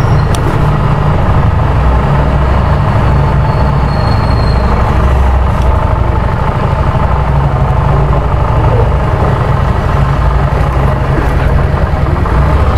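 Harley-Davidson Street Rod 750's liquid-cooled V-twin running as the motorcycle is ridden slowly, a steady low rumble.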